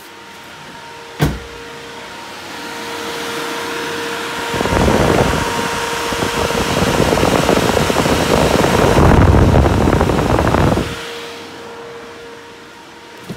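Electric fan on an aftermarket Earl's transmission cooler running, a rushing air noise that grows loud for several seconds and then drops back down. A sharp click about a second in.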